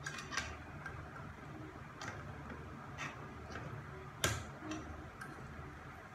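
A handful of separate sharp metal clicks and taps from a screwdriver and small screws working on a Mercedes 722.6 transmission valve body, the sharpest about four seconds in.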